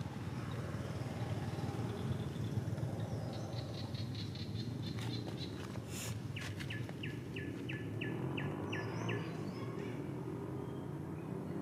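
Outdoor background noise with a steady low hum, over which a bird calls a quick run of about nine short chirps at some three a second around the middle, after a fainter run of rapid ticks a little earlier.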